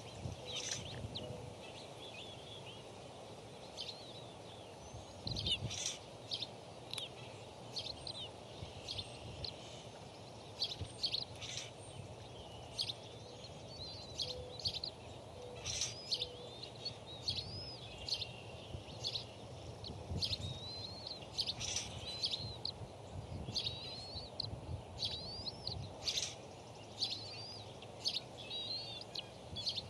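Birds calling and chirping outdoors: many short chirps and quick rising-and-falling whistled notes, scattered irregularly over a steady background rush.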